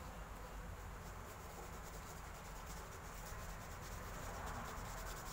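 Paintbrush brushing black paint onto a shoe: soft, scratchy bristle strokes over a low steady hum.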